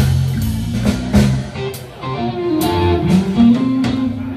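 Live band playing with electric bass, drums and electric guitar. The sound thins briefly about halfway, then an electric guitar plays a single-note lick with bent notes over the drums.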